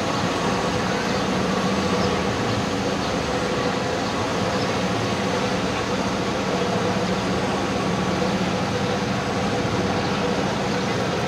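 A steady mechanical hum under the murmur of a large crowd walking and talking.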